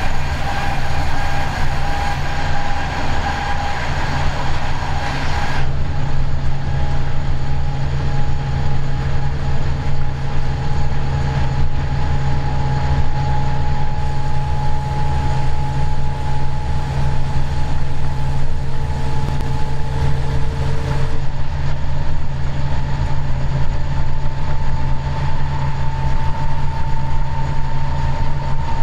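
Diesel locomotive running steadily under way, heard from the cab: a constant low drone with steady whining tones on top. A rushing noise from a freight train passing alongside cuts off abruptly about six seconds in.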